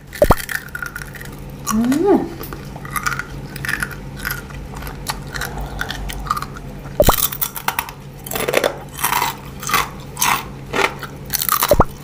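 Close-up crunching and chewing of crisp, lacy edible coral candy, bitten off in brittle pieces and chewed. The crackling comes in clusters, heaviest about seven seconds in and again near the end.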